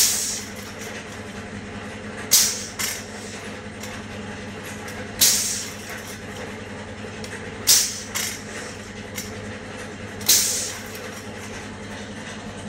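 Pneumatic cylinders of a homemade retractable landing gear cycling the wheels. Compressed air exhausts from the valves in five sharp hisses, roughly every two and a half seconds, two of them followed quickly by a smaller hiss, over a steady mechanical hum.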